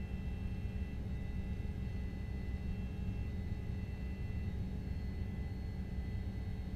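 Steady low rumble of a vehicle driving, heard from inside the cabin, with faint steady high-pitched electronic tones above it.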